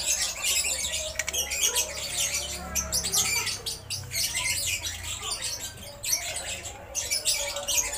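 A steel pry tool scrapes and clicks against the pads of a Kawasaki Ninja R front brake caliper as the pads are levered apart to push the pistons back. Birds chirp steadily in the background.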